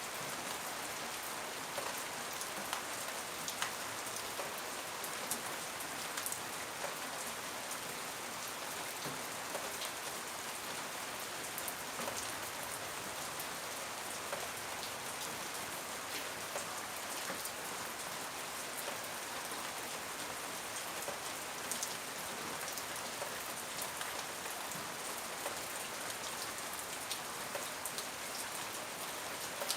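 Steady rain falling, an even hiss with many individual drops pattering and ticking on a surface.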